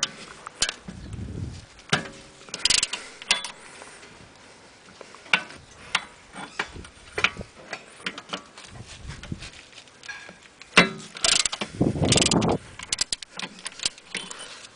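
Hand ratchet turning a T50 Torx bit to break loose the rear wheel bearing's retaining screws: short bursts of ratchet clicking with sharp metal clinks of the tool against the hub. The biggest bursts come about three seconds in and again past the ten-second mark.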